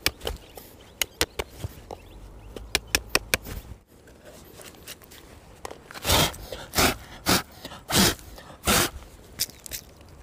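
A pointed stick jabbed into hard, gravelly ground to dig a small hole, giving sharp scraping knocks several times a second. After a break, hands sweep loose soil and grit away from the hole in five or six rough swishes.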